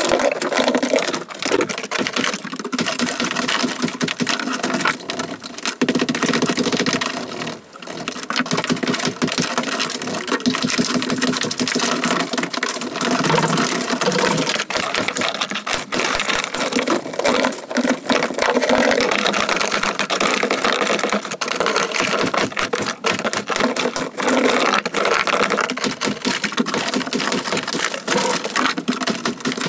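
Dense, rapid clatter of sledgehammer blows and fired-clay bricks and mortar breaking off a brick wall and tumbling onto rubble, with hardly a pause.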